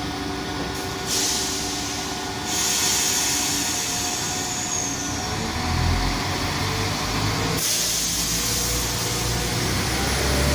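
Class 172 diesel multiple unit starting to pull away. Loud bursts of compressed-air hiss come from about a second in, and the low hum of its diesel engines rises from about six seconds in as the train moves off.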